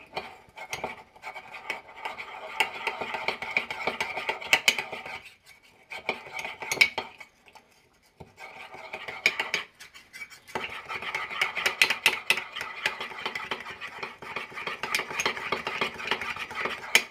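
A metal spoon stirs and scrapes around the inside of a ceramic mug, mixing a thick peanut butter glaze, with sharp clinks of the spoon against the mug wall. The stirring stops briefly about five, seven and ten seconds in.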